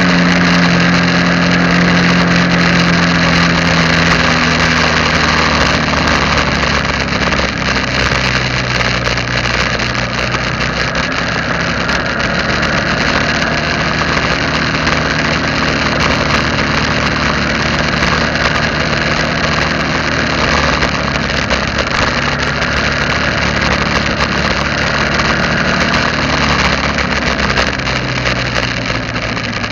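Engine of a moving vehicle heard from on board, running steadily while driving, over a constant hiss of road and wind noise. The engine note eases down a little in the first few seconds and shifts again near the end.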